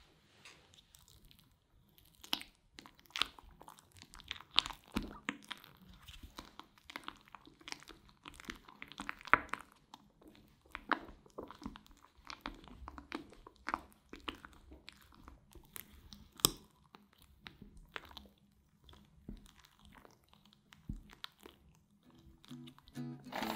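Silicone spatula folding a thick whipped-cream and cottage-cheese mixture in a glass bowl: irregular wet squelches and soft scrapes and clicks against the glass, starting about two seconds in.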